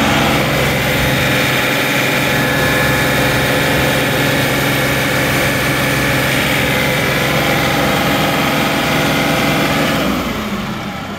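John Deere 2038R's three-cylinder diesel engine running steadily at wide-open throttle while the loader's curl circuit is held under pressure for a hydraulic relief pressure test. About ten seconds in, the engine sound drops back and gets quieter.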